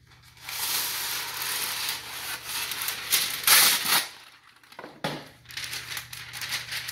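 A sheet of parchment paper rustling as it is pulled off its roll, with a louder rip about three and a half seconds in as it is torn off. The sheet then crinkles as it is handled.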